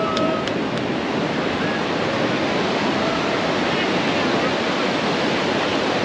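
Ocean surf breaking and washing up a sandy beach, a steady roar of wave noise, with faint voices of beach-goers in the background.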